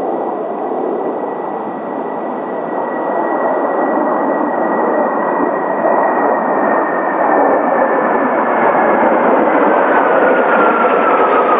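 Kawasaki T-4 jet trainers' turbofan engines growing steadily louder as the jets approach. A high turbine whine holds, then drops in pitch from about six seconds in as they pass.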